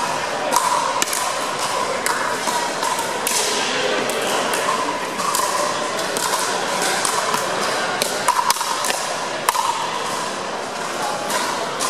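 Pickleball paddles striking a hollow plastic ball in a fast net rally: a run of sharp pops, several close together at times, over a steady hum of hall noise.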